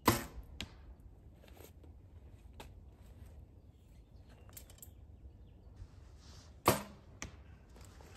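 Two compound bow shots, about six and a half seconds apart: each is a sharp snap of the string and limbs at release. Each is followed about half a second later by a fainter knock as the arrow strikes the target at 40 yards.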